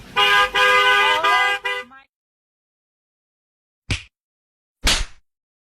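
Car horn held down for about two seconds, a steady chord-like blare. After a silent gap, two short thumps come about a second apart.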